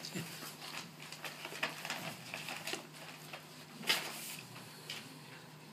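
Papers and a folder rustling as they are handled near a microphone: a run of short rustles, the loudest about four seconds in, over a steady low hum.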